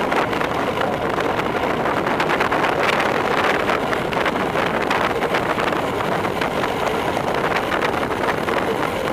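Steady rushing wind on the microphone of a bike-mounted camera during a fast road-bike descent.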